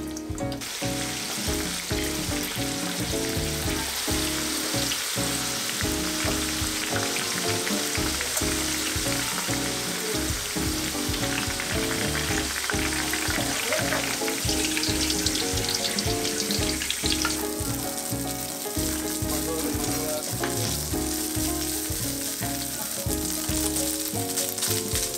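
Food sizzling in hot oil in a pan, a steady crackling hiss that eases off about two-thirds of the way through, over background music with a steady beat.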